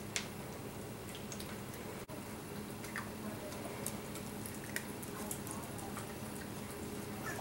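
Italian greyhound puppies eating soft canned dog food mixed with dry kibble: faint wet licking and chewing, with scattered small clicks.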